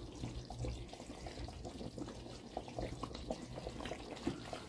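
Wooden spoon serving chunks of stewed beef in thick sauce from a pan onto a clay plate: irregular soft wet plops and drips, over a steady low hum.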